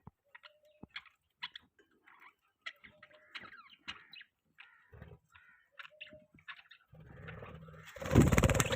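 Budgies chirping in short, scattered chirps. Near the end, a louder rustling noise rises over them and is the loudest sound.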